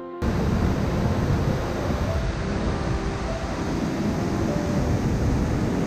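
Waterfall with a heavy flow of water, rushing as a steady, dense noise that cuts in sharply just after the start.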